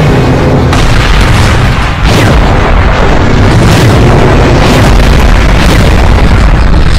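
Explosion sound effects from an animated battle: a heavy, continuous rumble with about five separate blasts, roughly one every second or so.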